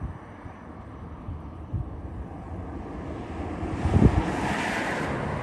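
Wind gusting on the microphone, with a road vehicle passing close by: its tyre noise swells from about three seconds in and stays loud to the end.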